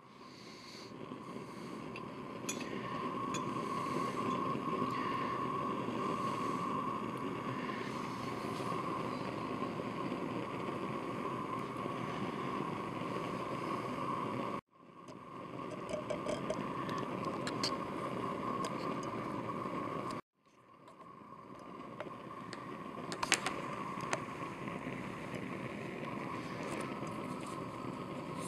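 Steady hissing rumble of water heating in a glass beaker on a hot plate, on its way to the boil. It breaks off abruptly twice and fades back in each time, and a few sharp ticks come near the end.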